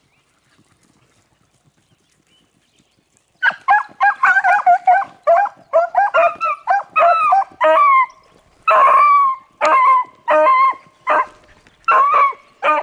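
Beagle hounds baying on a rabbit's scent trail, starting about three seconds in. There is a quick run of overlapping cries at first, then separate, spaced bawls, some short and some drawn out.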